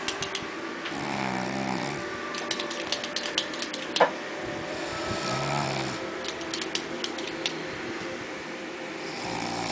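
A person snoring: a rasping snore on the in-breath about every four seconds. Between snores come runs of rapid clicking, and there is one sharp, loud click about four seconds in.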